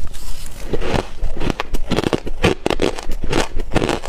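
A person chewing a mouthful of chunky crushed ice: a quick run of crisp, irregular crunches.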